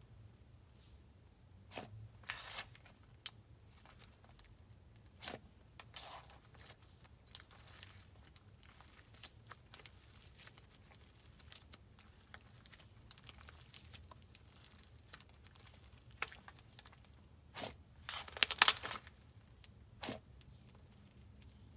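Hands stretching and squishing slime: scattered short sticky crackles and pops, with a longer, louder crackling burst near the end.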